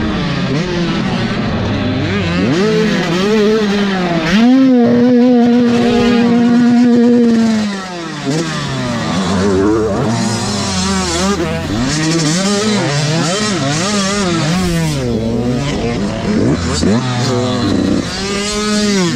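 Motocross dirt bike engine, heard from on board, revving up and down with the throttle and gear changes. About four seconds in it holds one high, steady note for about three seconds, then drops off.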